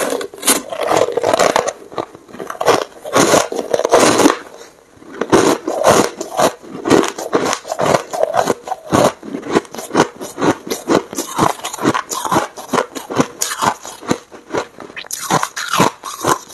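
Close-up crunching of a mouthful of packed, snow-like ice being chewed: several sharp crunches a second, with a short lull about five seconds in.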